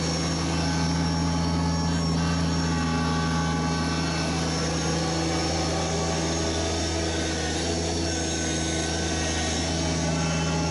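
Kubota BX1870 compact tractor's small three-cylinder diesel engine running steadily, a constant low drone while it pushes snow with the front plow.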